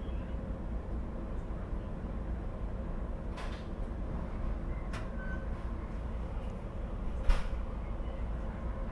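Inside a SEPTA Regional Rail car rolling slowly through an underground station: a steady low rumble, broken by a few sharp clicks, the loudest about seven seconds in.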